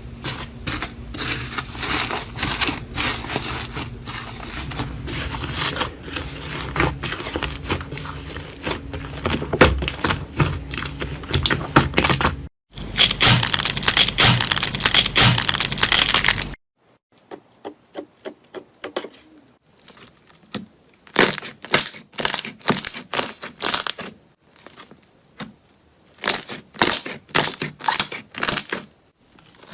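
Crunching and crackling from crunchy slime and soap being pressed, squeezed and cut, in several short clips. Dense crackling comes first, then a louder stretch of about four seconds, then separate crunches with short pauses between them.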